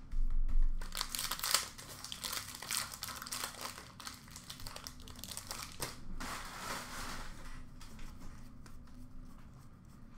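Upper Deck hockey card pack wrappers crinkling and tearing as they are opened by hand, in two spells, with small clicks from cards being handled. A dull bump at the very start is the loudest moment.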